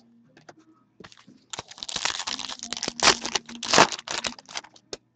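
Foil wrapper of a hockey trading-card pack being torn open and crinkled by hand, a crackling rustle that comes in about a second and a half in and peaks twice before fading.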